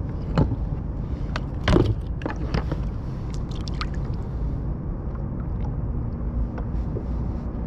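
Water lapping and gurgling against a plastic sit-on-top kayak hull over a steady low rumble, with scattered sharp knocks and clicks on the boat, the loudest nearly two seconds in.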